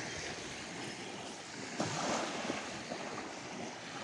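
Sea surf washing onto the shore, a steady rush that swells about two seconds in.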